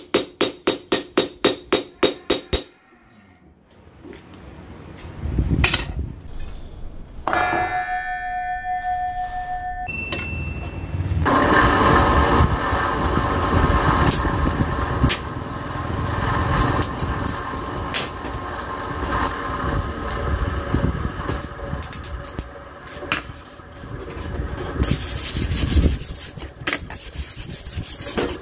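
Hand hammer striking a hot cleaver blade on a steel stake anvil, about four blows a second, stopping after two seconds or so. Then a steady rushing noise with a faint whine, the coal forge's air blast running while the blade reheats, with a few clinks of the tongs.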